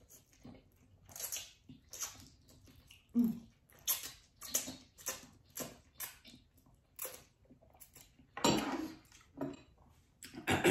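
Close-miked chewing of spicy instant ramen noodles: wet mouth and smacking sounds about twice a second, with a longer, louder mouth sound about eight and a half seconds in.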